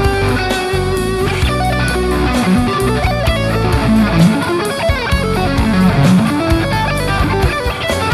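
Electric guitar played through a Mooer GE250 multi-effects processor, running melodic lines with several bent notes over a backing of low sustained bass notes and regular beats.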